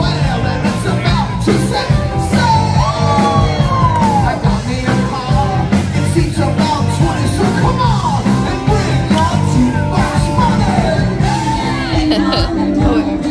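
Live rock band playing: electric guitar, bass and drums, with a singer's voice over them.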